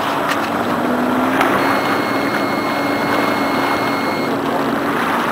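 A motor drones steadily under a constant rushing noise, with a faint high steady tone in the middle for about three seconds.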